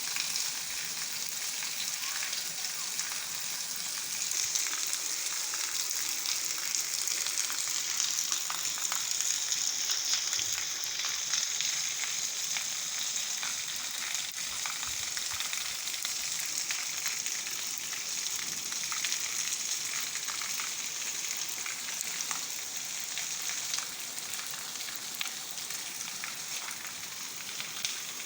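Steady rain falling: an even patter made up of many small drop ticks, holding constant throughout.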